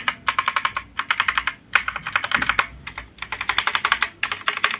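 Keys of a Cosmic Byte mechanical keyboard with red linear switches being pressed in quick runs of clicks, with short pauses between runs. The keyboard is sounding fine, with no faulty key noise.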